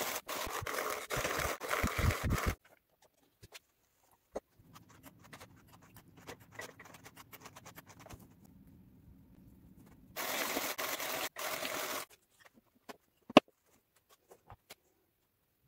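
Hand-cranked drum carder working Romney wool: the toothed carding drums turning make a loud, scratchy rushing noise in quick bursts for about two and a half seconds. After a quieter stretch of faint scraping and ticks as the wool is worked on the carding cloth, a second loud scratchy burst lasts about two seconds, followed by one sharp click.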